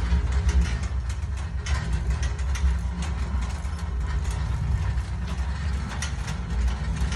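Spalding Renegade portable basketball backstop's hydraulic lift system running with a steady low hum, with scattered metallic clicks and taps over it.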